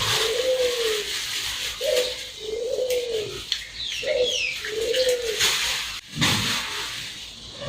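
A dove cooing in three phrases, each a short note followed by a longer coo that rises and falls in pitch. Faint high chirps from a smaller bird come around the middle, and there is a brief rustle about six seconds in.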